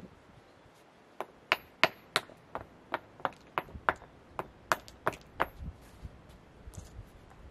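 A small hand tool tapping on stone: about a dozen sharp knocks, roughly three a second, starting about a second in. Some have a faint high metallic ring. Softer, duller knocks follow near the end.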